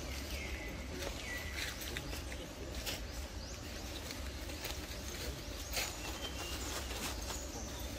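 Birds calling in the forest canopy: short whistled notes that slide downward, repeated several times. Underneath is a steady low rumble, with a few sharp clicks scattered through.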